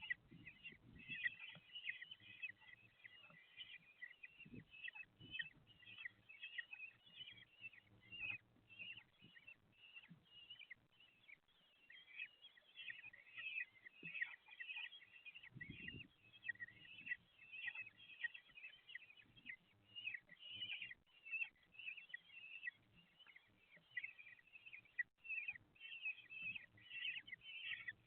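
Common kestrel chicks in the nest keep up a rapid, high-pitched chittering of begging calls, typical of chicks being fed. A few faint low bumps come in among the calls.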